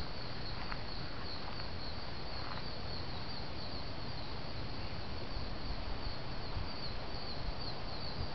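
Outdoor insect chorus: a steady, high, pulsing trill that goes on without a break, over a low, even background rush.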